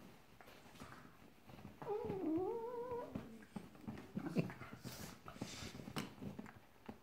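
Two small dogs play-fighting on a leather armchair: one gives a wavering whine about two seconds in, lasting about a second, that dips and then rises in pitch. Around it are scattered soft knocks and rustles from their scuffling on the leather.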